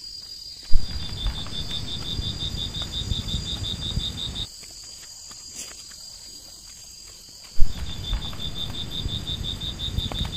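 A steady, high insect drone of forest insects. Twice, a sharp knock starts about four seconds of low rumbling noise, with a rapid pulsing chirp over it at about six pulses a second.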